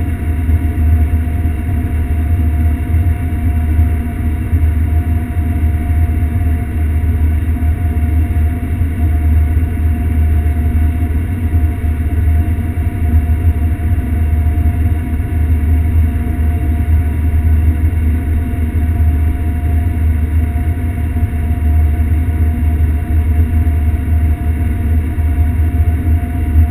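John Deere S670 combine running while harvesting sunflowers, heard inside the cab: a steady deep drone with a constant whine over it.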